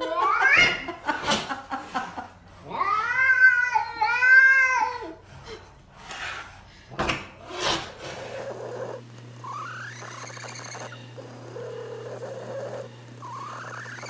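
A domestic cat's defensive growl: drawn-out, wavering yowls, the two longest and loudest a few seconds in, followed by a few sharp clicks. In the second half, quieter short rising cat calls over a steady low hum.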